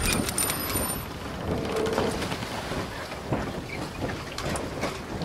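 Logo intro sound effect: a broad crackling hiss like rain or distant thunder, a little louder in the first second, with a faint high ringing tone over that first second.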